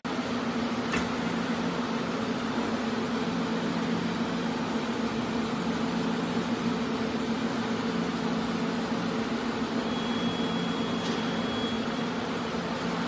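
Card slitting and collating machine running with a steady electric hum. There is a click about a second in, and near the end a high beep lasting about two seconds, with a click partway through it.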